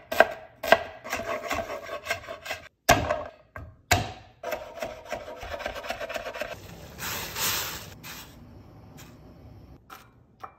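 Chef's knife mincing garlic on a wooden cutting board: a few sharp chops on the board, with the blade rocking and scraping across the wood between them. About seven seconds in there is a louder scrape, then the sound dies down.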